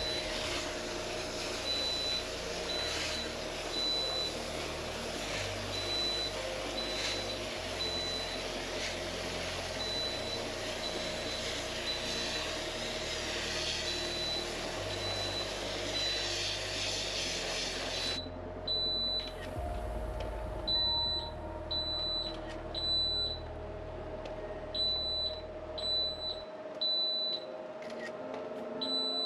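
A smoke alarm beeping over and over in a high tone, set off by the mist of air-conditioner cleaning solution, over the hiss of a spray wand washing the indoor unit's coil. The spraying stops about two-thirds of the way through while the beeping carries on.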